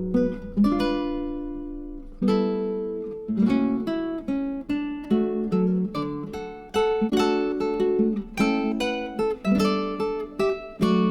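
Background music: plucked acoustic guitar notes and strums.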